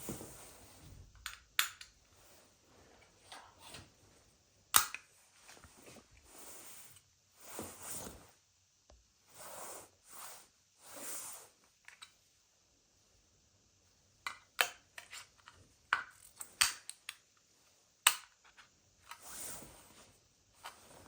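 Sharp clicks of small hard objects being handled and set down, several in quick succession later on, between stretches of soft rustling.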